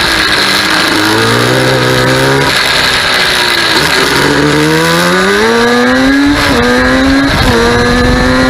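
Yamaha Banshee 350 quad's twin-cylinder two-stroke engine on its stock exhaust, revving under way. The pitch climbs and falls twice, then drops in two steps and holds at a steady speed.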